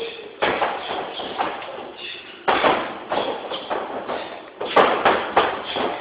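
Taekwondo jumping kicks: bare feet landing and stamping on a wooden floor, several thuds with a short echo, spread over a few seconds and closer together near the end.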